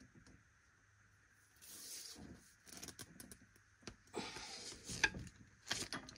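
A hand crimping tool and battery cable being handled: faint rustling and scraping with clicks, starting about a second and a half in. A sharp click comes about five seconds in, and the loudest scrapes come near the end.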